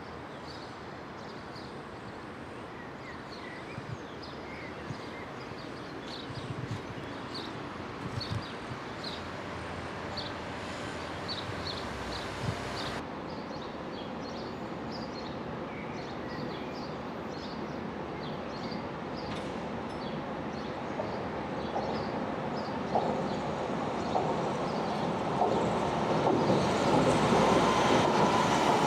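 A Berlin U-Bahn train approaching on the elevated line, its noise growing steadily louder and loudest near the end. Small birds chirp in short, repeated calls through the first two-thirds.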